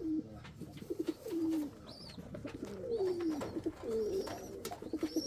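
Domestic pigeons cooing in a loft: several drawn-out coos sliding down in pitch, one after another, with scattered light clicks.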